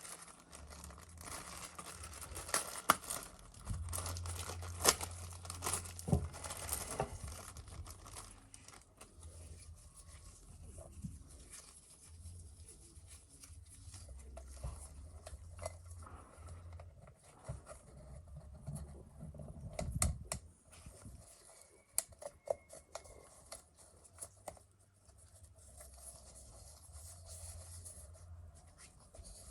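Crinkling and tearing of paper or plastic wrapping, with scattered small clicks and knocks of handling.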